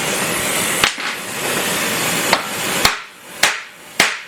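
A rosebud torch hisses steadily at first, then five separate hammer blows strike a red-hot steel rivet, flattening its head. The blows come at uneven gaps, closer together toward the end.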